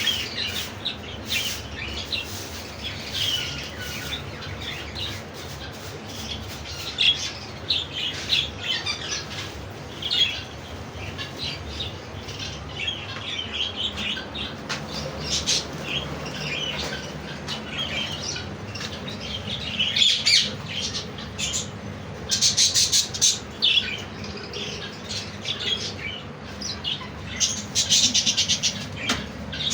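Parrots calling continuously with short chirps and harsh squawks. Louder, rapidly pulsed squawks come about two-thirds of the way through and again near the end.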